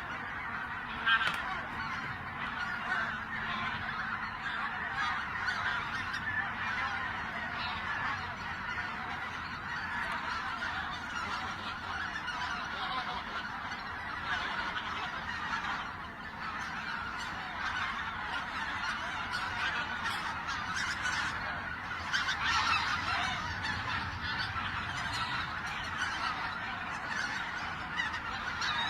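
A flock of wild geese honking continuously, many calls overlapping into a dense chorus.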